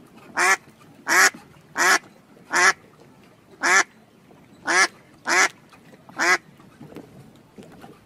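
Duck quacking: a series of eight short, loud quacks, spaced a little under a second apart, that stops about six and a half seconds in, leaving only faint background.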